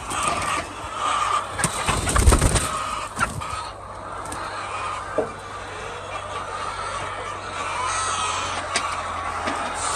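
A flock of hens clucking and calling, with scattered clicks and a few low knocks and bumps, the heaviest about two seconds in.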